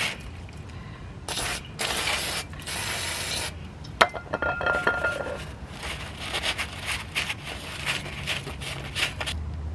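Aerosol brake cleaner sprayed in three short hissing bursts onto brake parts. About four seconds in comes a sharp metallic clink with a brief ring, then rubbing and scraping as the parts are wiped clean.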